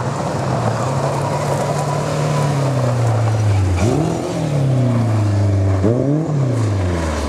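Ford Escort Mk2 rally car's engine at full effort on a gravel stage. Its note falls steadily for about four seconds, then revs sharply up twice, at about four and six seconds in, as the car powers through a loose corner, over the hiss of the tyres on gravel.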